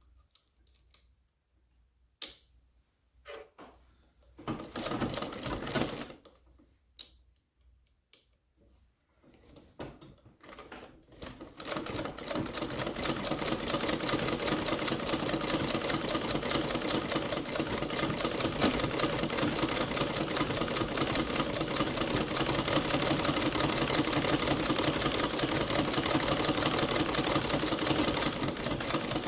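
Domestic treadle sewing machine driven by its foot treadle to wind a bobbin. It gives scattered clicks and knocks at first, then from about twelve seconds in a steady, rapid mechanical clatter as the machine runs up to speed.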